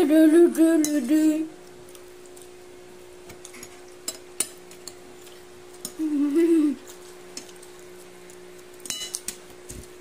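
Metal spoons and forks clinking and scraping on plates of noodles and rice as people eat, with a few sharp clinks. A short wordless vocal sound is the loudest thing, once at the start and again about six seconds in.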